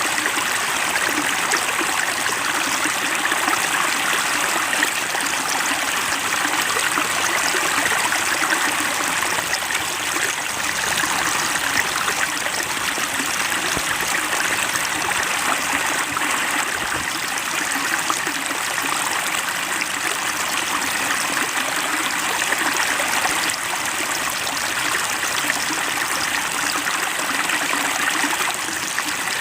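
Flowing water: a small stream running over stones with a steady trickling and splashing.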